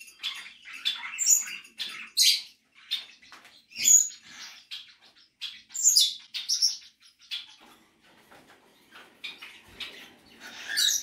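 A flock of pet parrots chirping and calling: a run of short, sharp high calls, the loudest about two, four and six seconds in and again near the end, with a quieter lull in between.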